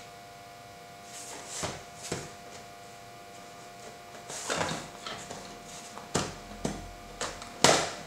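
Hard plastic carrying case of a mini camping gas stove being handled and opened: a string of short plastic clicks and knocks, the sharpest near the end.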